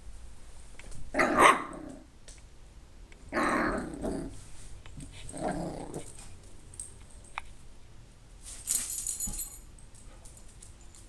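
Yorkshire Terrier puppy growling and barking in three short bursts, a growl of frustration. A brief high rattle follows near the end.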